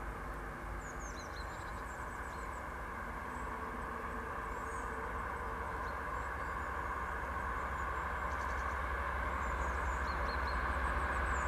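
The V16 diesel engine of an approaching TEP70BS passenger locomotive, heard from far off as a low rumble that grows steadily louder. Scattered high bird chirps sound over it.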